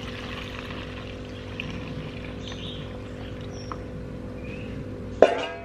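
Liquid being poured from a stainless steel bowl through a plastic funnel into a bottle, with faint trickling and small splashes. About five seconds in comes a single sharp clank with a brief ring, the loudest sound.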